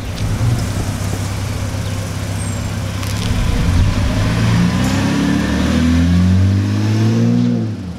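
BMW E90 330i's straight-six engine pulling away and driving past, the engine note rising in pitch as the car accelerates over the last few seconds.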